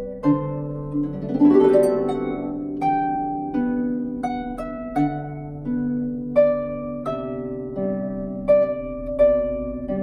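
Salvi Mia 34 lever harp with silkgut strings, plucked by hand: a slow melody of single ringing notes over held low bass notes, with a quick rising run about a second and a half in.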